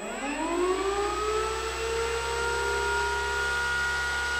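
Carbon Z Cub RC plane's electric motor spinning its propeller up: a whine that rises in pitch over about the first second and a half, then holds steady.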